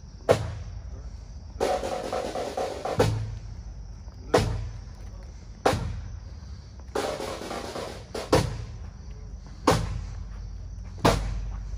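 Marching drums beating a slow procession cadence: a heavy bass drum stroke about every one and a third seconds, with snare drum rolls filling the gap after some of the strokes.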